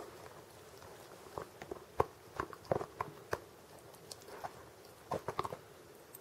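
A small dog gnawing a hard bone-shaped chew treat: irregular clicks and crunches of teeth on the chew, in a run from about a second in and again about five seconds in.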